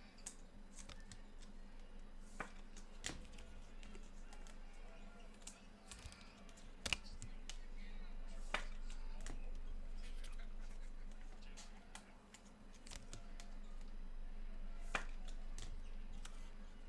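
Trading cards and packaging being handled: irregular sharp clicks and taps, a few louder ones, over a low steady hum.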